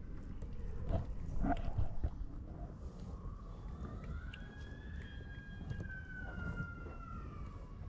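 A siren wails once, its pitch rising and then slowly falling back over about five seconds, starting about three seconds in. Before it come a few soft rustles from handling, over a steady low rumble.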